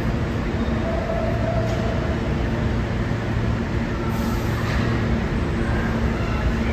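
Vintage R1-9 subway train running through an underground station, a steady, loud rumble of wheels on rail with a low hum underneath.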